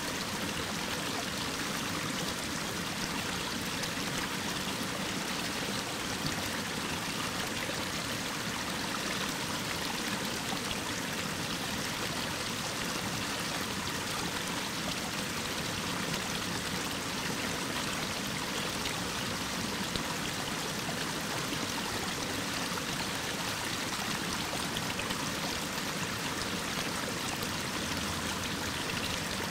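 Mountain waterfall spilling down a rock face: a steady, even rushing of falling water with no change.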